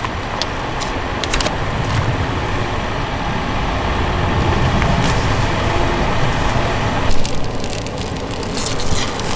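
A pot of water boiling steadily on a burner, with a low bubbling rumble, heating food pouches in a water bath. The higher part of the sound drops away abruptly about seven seconds in.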